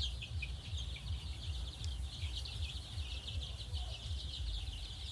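A flock of young Sonali chicks peeping constantly, many short high chirps overlapping, over a steady low rumble.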